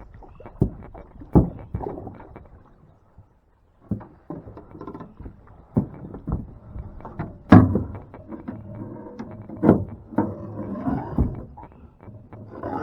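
Irregular knocks and thumps in a fishing boat as a catfish is taken off a trotline and handled aboard, with two louder bangs about seven and a half and nine and a half seconds in.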